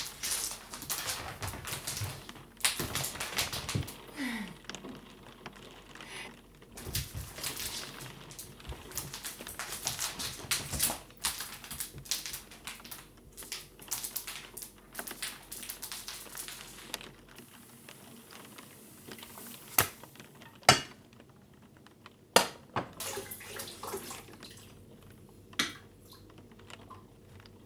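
Small kitchen handling sounds: a dense run of light clicks, taps and scrapes that thins out about halfway, leaving a few separate sharp knocks.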